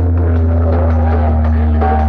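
Loud music played over a DJ sound system: a heavy, steady bass drone under a moving melody line and a quick, even beat.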